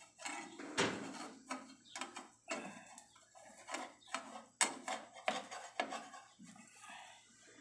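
Spatula knocking and scraping against a non-stick frying pan as a pancake is loosened and flipped: a string of irregular sharp clicks and knocks with softer scraping between them.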